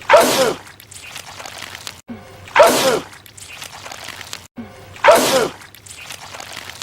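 A man sneezing over and over, the same sneeze repeated three times about two and a half seconds apart. Each is a brief rising intake of breath followed by a loud explosive blast that falls in pitch.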